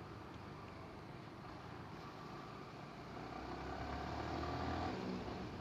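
Motorcycle running on the road, picked up by a small home-made helmet microphone: steady engine and road noise, with an engine note growing louder about three seconds in.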